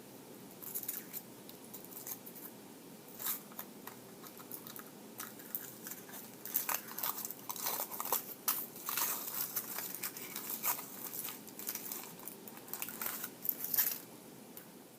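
Kinder Surprise egg being unwrapped: the foil wrapper crinkling and tearing in quick irregular crackles, on and off for most of the stretch.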